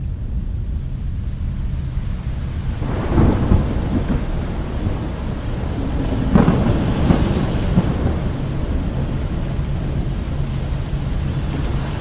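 Storm noise: a steady deep rumble under a rain-like hiss, swelling into louder rolls about three seconds in and again around six to seven seconds in.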